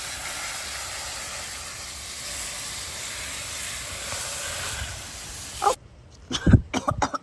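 Water spraying in a steady hiss that cuts off suddenly near the end, followed by a low thump and a few brief vocal sounds.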